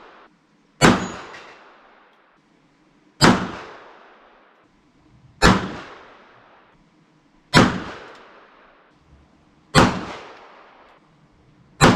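Kel-Tec PMR-30 pistol firing .22 Magnum rimfire rounds: six single shots about two seconds apart, each followed by a fading echo. Every round fires with no misfire, even though the ammunition spent five years stored in a car trunk.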